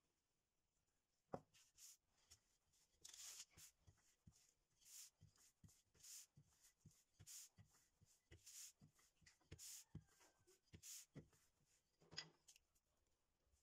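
Faint, repeated swishing strokes, roughly one a second, as a hand presses and smooths shortcrust tart dough spread on floured baking paper, with a single light knock about a second and a half in.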